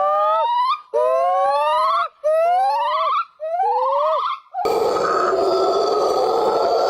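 Primate calls: a series of four whooping notes, each about a second long, rising steadily in pitch and ending with a quick downward drop. About four and a half seconds in they cut abruptly to a continuous rough, roaring call.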